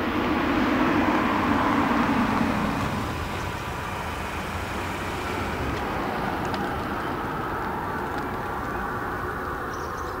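Cars rolling slowly past at low speed: a steady running and tyre sound, louder for the first three seconds and then steadier and a little quieter.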